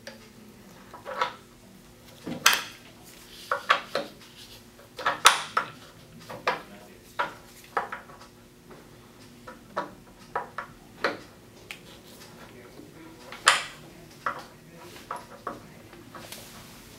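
Irregular clicks, taps and clacks of hard plastic parts being handled as the bioreactor vessel is seated in its cradle on the rotator base, a few of them sharper, over a faint steady hum.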